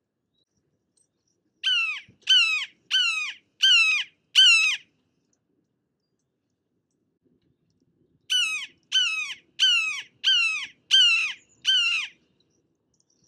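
Red-shouldered hawk giving its loud, repeated 'kee-ahh' call, each call sliding down in pitch. There is a run of five calls, about three every two seconds, then a pause of about three seconds and a second run of six.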